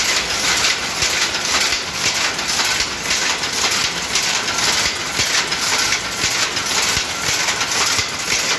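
Power loom running at speed while weaving a Banarasi silk saree: a loud, steady, rhythmic mechanical clatter.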